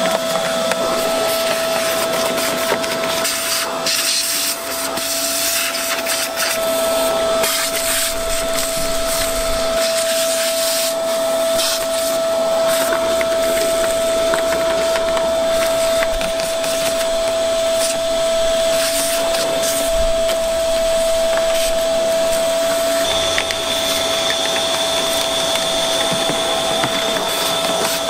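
Vacuum cleaner running with a steady motor whine while its hose nozzle sucks debris out of a car's engine bay, with scattered clicks as bits rattle up the hose. A higher whistle joins near the end.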